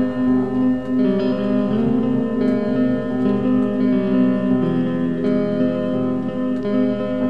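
Music from a depressive black metal track: slow, guitar-led chords that change about once a second.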